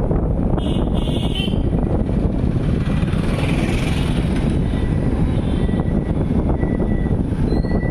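Steady, loud wind rumble on the microphone mixed with the noise of a moving vehicle.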